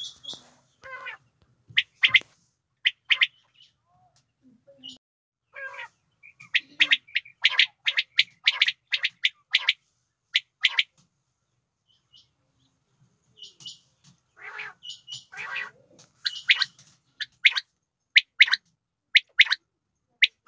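Female common quail calling: short, sharp, high notes repeated in quick runs, with pauses between the runs and a longer break about twelve seconds in.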